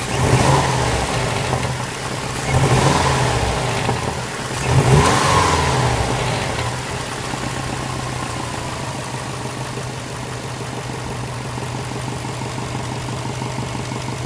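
Subaru WRX flat-four boxer engine blipped three times in quick succession, each rev rising and falling, then settling back to a steady idle. The engine has a knock that the owner is recording.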